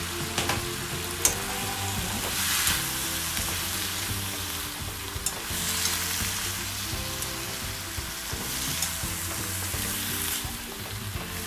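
Beef, shrimp and vegetables sizzling in a nonstick wok while being stirred with chopsticks, with a few light clicks against the pan.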